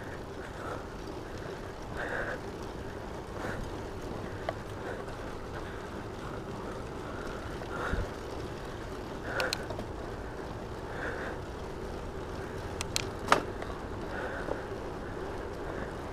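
RadRover electric bike rolling along a paved trail: a steady hum from the tyres and drivetrain with wind noise on the unshielded mic, and a few sharp clicks about thirteen seconds in.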